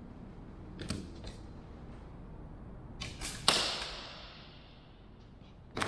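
Staple gun firing into wooden elevator ribs: a couple of light clicks, then sharp snaps, the loudest about three and a half seconds in with a metallic ring that fades over about a second, and another snap near the end.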